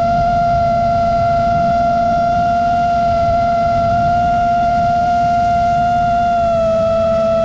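Quadcopter drone's electric motors and propellers whining at a steady pitch, dipping slightly about six and a half seconds in, over a low rumble of wind.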